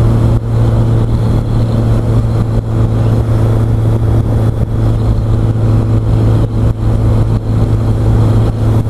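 Motorcycle engine running at a steady cruise, with a constant low hum and rushing wind noise, picked up by a microphone mounted inside the rider's helmet.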